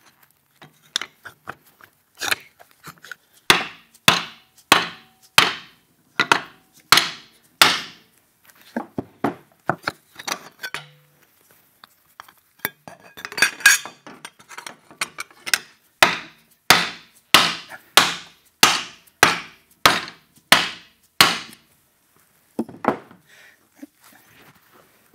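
Hammer blows on a metal fender-mount strip clamped in a bench vise, bending and straightening it into shape. Dozens of sharp strikes, loosely spaced at first, then a steady run of about two a second, ending with a few lighter taps.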